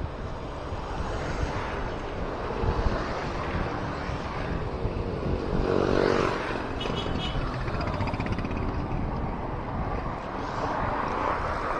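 Wind rushing over the microphone of a camera riding along on a bicycle, with road and traffic rumble. A vehicle passes about halfway through, its engine note swelling and then fading.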